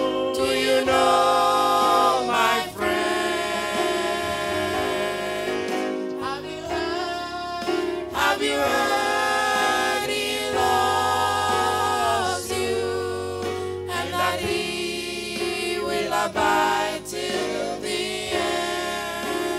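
Small gospel vocal group of women and a man singing in harmony into microphones, holding long chords with brief breaks between phrases.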